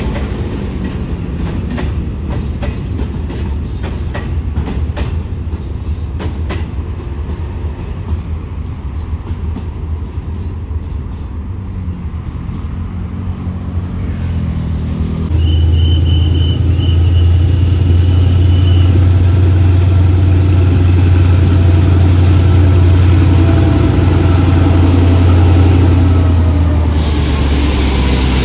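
Container freight train rolling past, its wagon wheels clacking over the rail joints. About halfway through this gives way to a diesel locomotive's engine running loud and steady as it draws alongside, with a brief high squeal and a hiss near the end.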